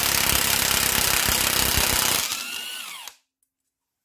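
Parkside impact gun hammering on a tight bolt on a rusty subframe bracket. After a little over two seconds the hammering stops and the motor winds down, falling in pitch, and goes quiet about three seconds in.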